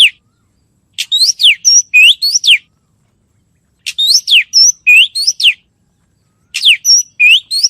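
A bird singing loud phrases of quick whistled notes that swoop up and down. Three phrases of about a second and a half each come with short pauses between them.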